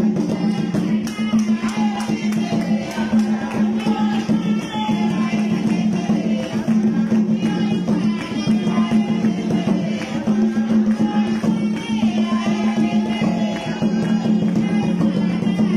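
Lively dance music with singing over a fast, steady percussion beat.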